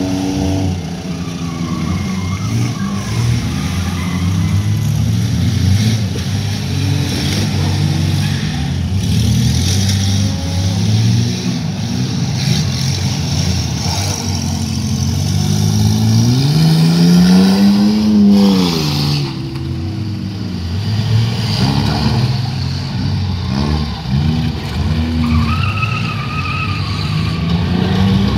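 Engines of several battered race cars running laps on a paved oval, revving and passing one another. Their pitch shifts up and down throughout. About two-thirds of the way through, one engine rises loudly in pitch and then falls away as it passes.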